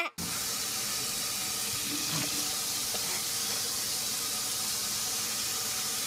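Kitchen faucet running steadily, its stream of water pouring into a stainless steel sink; the sound starts suddenly right at the beginning.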